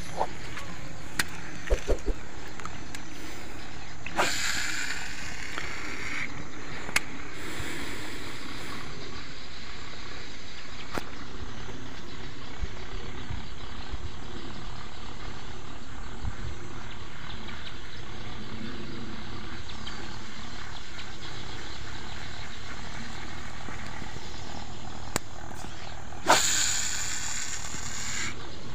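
Steady wind rumble on the microphone, with a few faint clicks and two brief hissing whirrs, one about four seconds in and one near the end.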